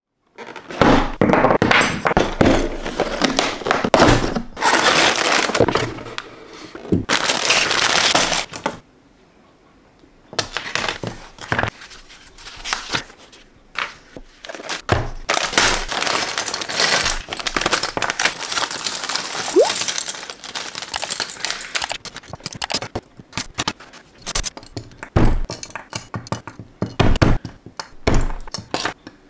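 Close-miked handling of a LEGO set: paper and plastic packaging rustled and torn, then many sharp clicks and clatters of small plastic LEGO pieces poured onto a table and sorted.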